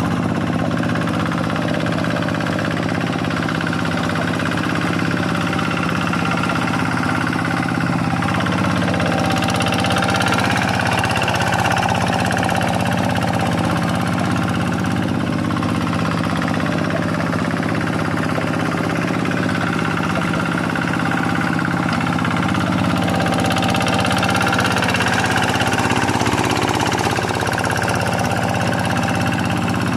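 Quick G1000 hand tractor's single-cylinder Kubota diesel engine running steadily while ploughing a rice paddy, its pitch shifting slightly with the load.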